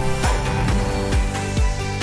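Background music with a steady beat, about two beats a second, under sustained chords.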